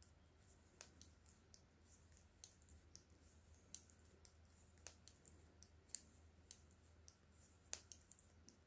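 Knitting needles clicking faintly and irregularly, about one to two clicks a second, as stitches are worked along a row.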